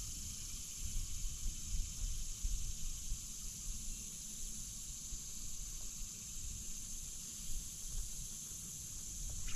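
Quiet outdoor ambience: a steady high-pitched hiss over a low, uneven rumble.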